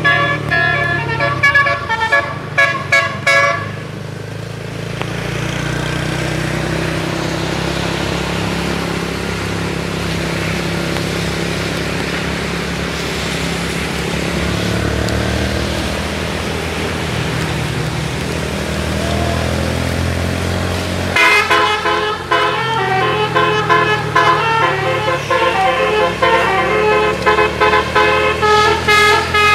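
Bus telolet horn, a set of roof-mounted air-horn trumpets, playing a fast multi-note melody that breaks off about four seconds in. A heavy engine then runs steadily with road noise until the horn melody starts again, loud and rapid, past the two-thirds mark.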